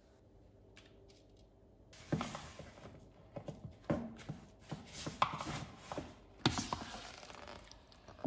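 A utensil stirring and scraping a spice-and-oil marinade in a plastic mixing bowl, with quick taps and clicks against the bowl's sides. It starts about two seconds in and runs as an uneven series of scrapes and knocks, with a sharper knock near the end.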